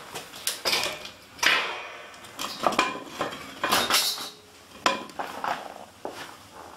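A mountain bike being kicked and knocked over: a series of sharp metallic clanks and rattles, about six hits, several with a brief ringing.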